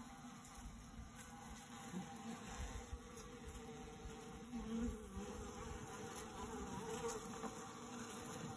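A mass of honey bees buzzing in a steady, low hum of many wings.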